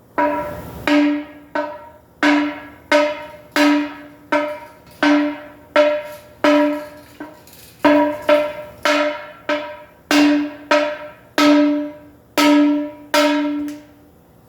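Repeated hammer blows on a bent wheel rim, about one to two a second at uneven spacing, each strike ringing out at the same pitch and dying away: the rim being hammered straight.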